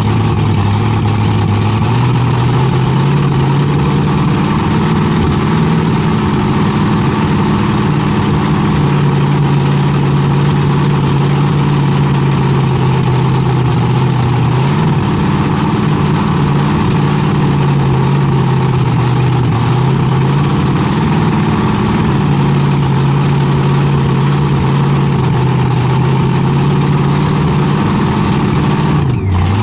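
Two-wheel-drive pulling tractor's engine idling loud and deep, its pitch stepping up and down a little several times.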